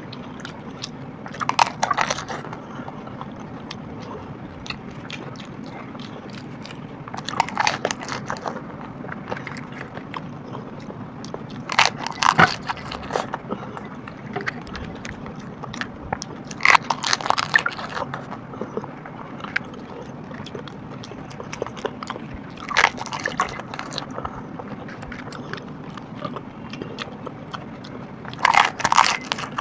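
Crisp pani puri shells crunching as they are cracked and bitten, a short burst of crunches about every five seconds, over a steady low background hum.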